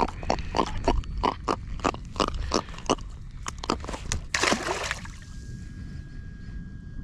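A freshly caught jack grunting in a rapid series of short croaks, about three to four a second, followed by a splash about four and a half seconds in.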